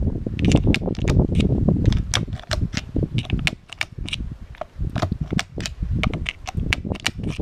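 Rain dripping: an irregular patter of sharp ticks, several a second, as drops fall close by, over a low rumble.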